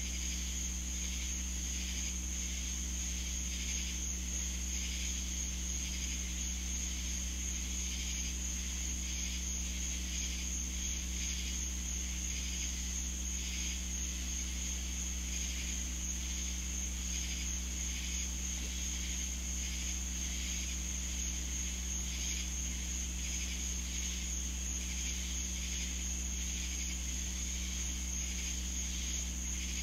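Swamp insect chorus: one continuous high-pitched steady trill over a pulsing, shimmering chorus a little lower, with a steady low hum underneath.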